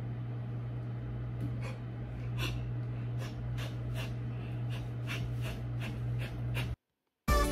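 Steady low room hum with faint, soft rustles every half second or so. It cuts off abruptly near the end, and music begins right after.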